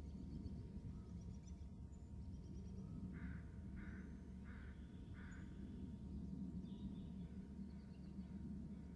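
A crow cawing four times in an even series, starting about three seconds in. Faint small-bird chirps and a steady low hum lie under it.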